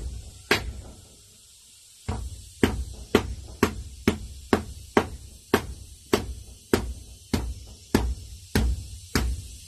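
A heavy wooden beater ramming earth into a wooden form, a steady run of dull knocks about two a second, after a short pause about a second in.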